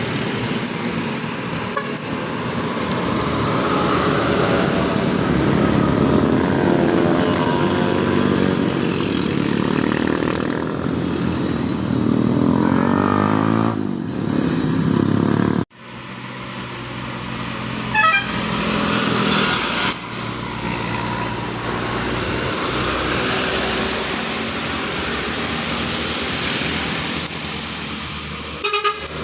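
Tour bus engines and passing road traffic, with a bus's telolet horn tooting. The sound cuts off abruptly about halfway through, then resumes.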